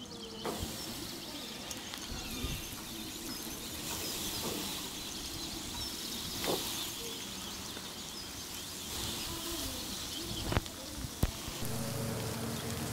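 Outdoor ambience with birds chirping, broken by a few short, sharp clicks.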